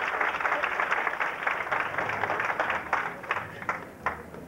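Guests applauding, dense clapping at first that thins to a few scattered claps and dies out about four seconds in.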